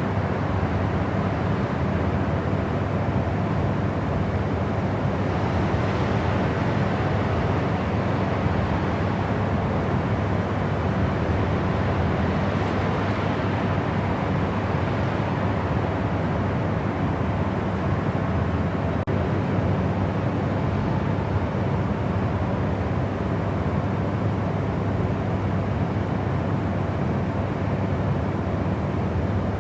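Steady white noise for sleep: an even, unchanging rushing hiss, weighted toward the low end.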